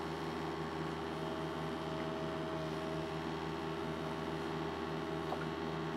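Yanmar diesel engine idling steadily with an even hum.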